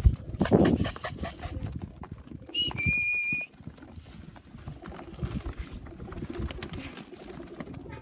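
Racing pigeons cooing in the loft, with scattered knocks, scuffles and a flurry of wing noise near the start. About three seconds in, a high whistled tone is held for about a second.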